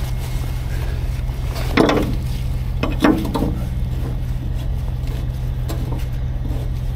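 Diesel truck engine idling steadily, with two short, sharper sounds about two and three seconds in.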